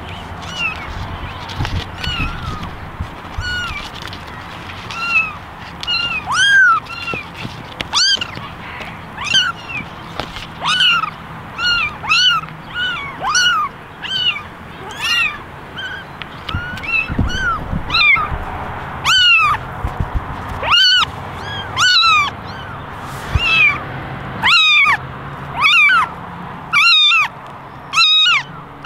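Young kittens meowing over and over: short, high-pitched calls that rise and fall in pitch. In the first half several kittens call at once and overlap. In the second half the calls become louder single meows, about one every second or so.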